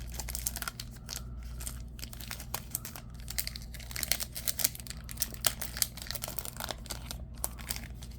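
Trading-card pack wrapper being torn open and crinkled by hand, a dense run of irregular crackles.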